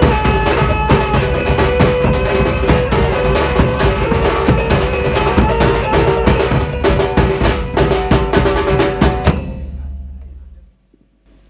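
Minangkabau traditional ensemble playing Galombang dance music: drums beating a fast, dense rhythm under a steady ringing melody. The music falls away and stops about ten seconds in.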